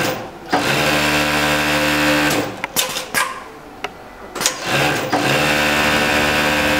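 Juki MF-7523 industrial coverstitch machine sewing at a steady high speed in two runs of about two seconds each. Between the runs come a few sharp clicks.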